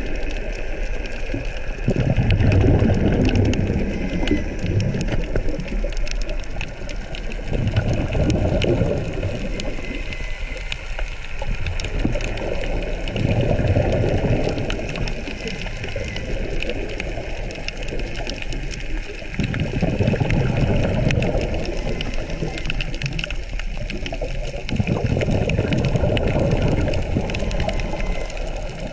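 Scuba diver's exhaled bubbles from the regulator, heard underwater through the camera housing: a low, bubbling rush about every five to six seconds, five times in all, in time with the breathing. Faint crackling clicks run underneath throughout.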